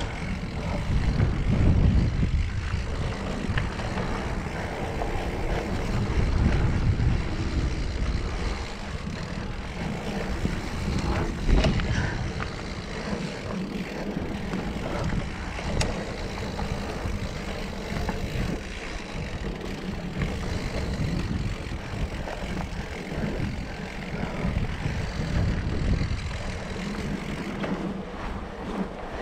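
Wind buffeting an action camera's microphone while a mountain bike rolls down dirt singletrack: knobby tyres rumbling on the trail, with scattered clicks and rattles from the bike over bumps and a sharper knock about eleven seconds in.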